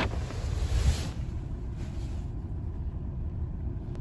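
Low, steady rumble of a car's running engine heard from inside the cabin, with a brief rustle in the first second.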